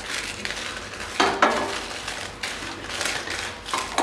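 Wooden spatula stirring dry red chillies as they roast in a stainless steel pan: irregular scrapes against the metal and the dry rattle of the chillies, the sharpest strokes a little over a second in.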